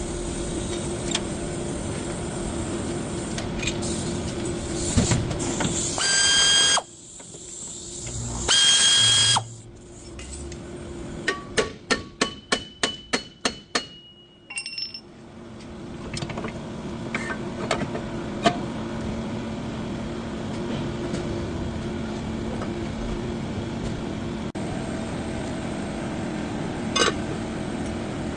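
Vehicle brakes squealing twice, each a loud high-pitched squeal lasting under a second, over a steady mechanical hum. About halfway through comes a quick run of about a dozen sharp clicks.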